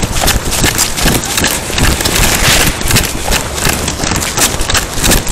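Body-worn camera being jostled as its wearer moves quickly: a loud, irregular run of knocks and rubbing from clothing and gear against the microphone, several a second.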